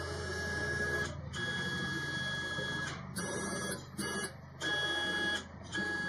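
CNC router stepper motors on Gecko drives whining as the axes are jogged: about six short moves, each a second or so long, starting and stopping abruptly with brief pauses between.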